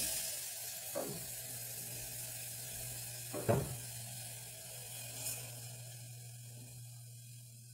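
A hot pot of sautéed vegetables sizzling as evaporated milk is poured in; the hiss comes in suddenly at the start and slowly dies away as the liquid cools the pan. Two sharp knocks come about a second in and about three and a half seconds in, the second the loudest.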